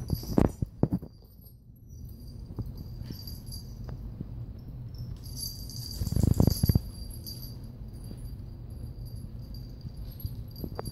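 Small bells on kittens' collars jingling now and then as they move and play. A few sharp knocks come near the start, and a louder cluster of thumps about six seconds in.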